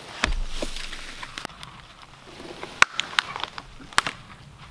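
A dead log being dragged over leaf litter and dry sticks on the forest floor. There is a dull thump just after the start, then rustling and crackling with sharp snaps of twigs; the loudest snaps come near the middle and near the end. Footsteps sound in the leaves.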